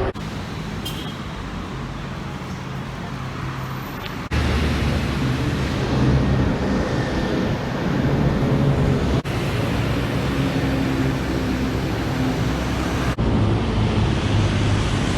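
Steady city road traffic: the running engines and tyre noise of cars and buses. The sound breaks off and jumps in level about four, nine and thirteen seconds in.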